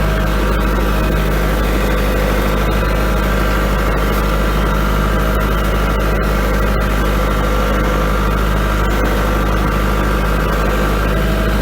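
Kubota L4701 tractor's four-cylinder diesel engine running steadily while driving, carrying a heavy burl half on its front end.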